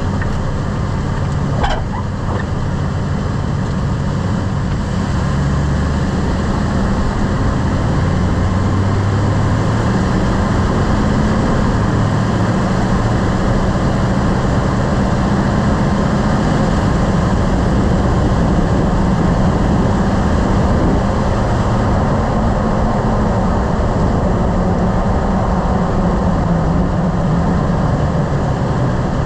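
Lifted pickup truck driving, with steady engine and road noise whose low engine tone rises and falls. A single sharp click sounds about two seconds in.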